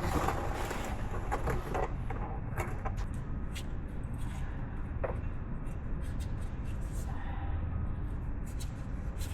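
Faint handling noises: scattered small clicks and taps, as of wires and test leads being fiddled with, over a low steady hum.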